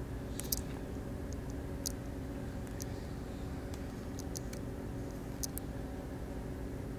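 A few light clicks and taps from a smartphone being handled and tapped, scattered over a low, steady hum.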